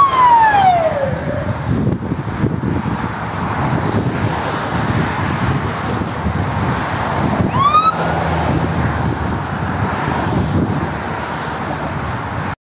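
Steady motorway traffic with fire engine sirens: a siren tone winds down and dies out about a second in, and a short rising siren whoop sounds about eight seconds in.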